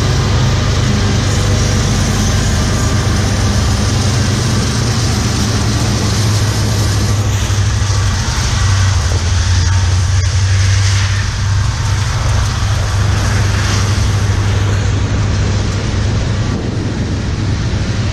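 Union Pacific freight train passing close by: the lead diesel locomotives, headed by a GE C45ACCTE, go past with a steady low engine drone, then tank cars roll by with continuous wheel-on-rail rumble.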